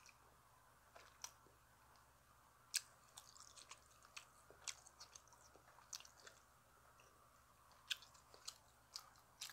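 A person chewing a last mouthful of food with the mouth closed: scattered faint wet mouth clicks and smacks over near silence.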